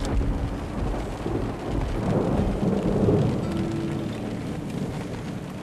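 Thunder rumbling over steady rain, swelling to its loudest about three seconds in and then dying away.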